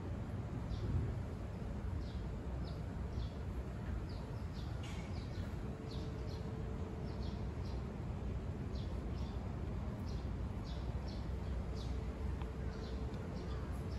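Small birds chirping: short high chirps repeated every half second or so, over a steady low background rumble.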